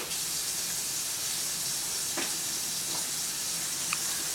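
Infant hiccuping: three short, sharp hiccups about two, three and four seconds in. Underneath is a steady hiss that comes on suddenly at the start.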